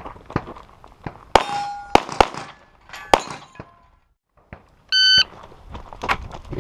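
Pistol shots with steel targets clanging and ringing when hit. After a short gap, a single electronic shot-timer beep sounds, the start signal for the next string of fire.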